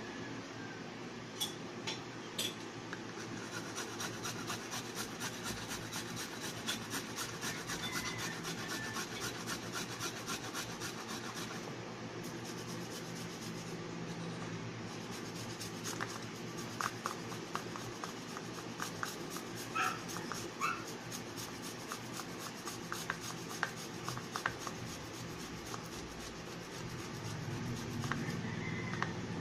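Something is scraped back and forth across a flat metal hand grater in quick, even strokes, with a short break about twelve seconds in.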